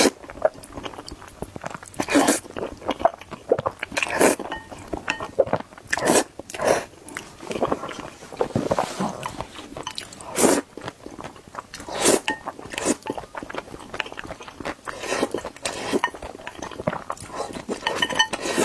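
Close-miked eating of hot dry noodles thick with sesame paste: wet chewing and mouth sounds, with a louder mouth sound every couple of seconds.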